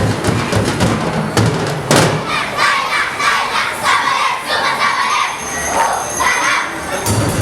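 Crowd cheering and shouting, high excited voices, while the dance music cuts out about two seconds in and comes back near the end.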